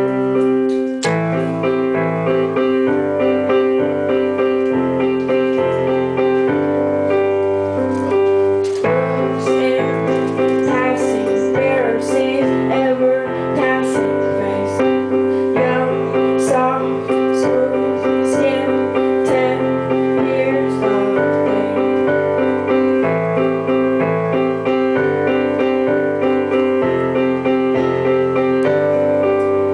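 Keyboard playing a song's instrumental intro: sustained chords held over a bass line that changes note every second or so.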